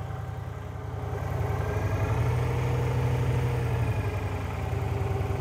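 2000 Victory V92 Sport Cruiser's 50-degree V-twin engine idling steadily. Its speed and level rise slightly about two seconds in, then settle back to idle.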